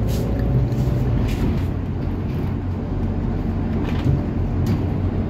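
Scania city bus running on the road, heard from inside the passenger cabin: a steady low engine drone with a faint whine and a few short rattles.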